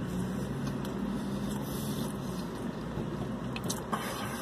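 Steady low hum of a car running, heard from inside the cabin, with a few faint clicks.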